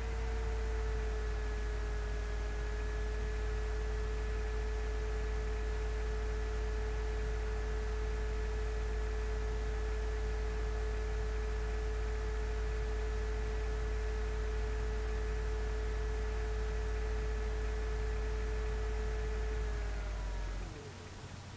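A steady ringing tone with a few fainter, higher overtones held for about twenty seconds over a low hum. The tone bends and dies away near the end, and the hum stops with it.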